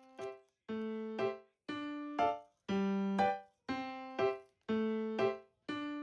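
Background music: a piano-like keyboard tune in a steady bouncing rhythm, a longer note followed by a short one about once a second.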